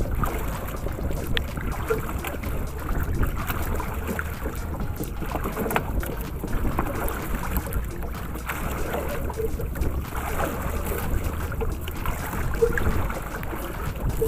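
Wind buffeting the microphone over water lapping against a small outrigger boat at sea: a steady, noisy rush with a few faint ticks.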